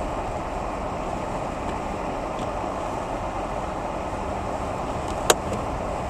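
Steady rushing noise of road traffic, even and unbroken, with one sharp click about five seconds in.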